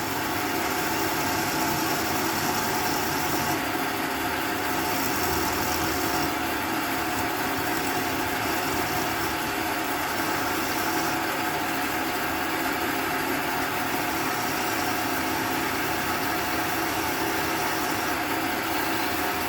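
A small electric motor running at a steady, even hum, with a faint high hiss that comes and goes several times.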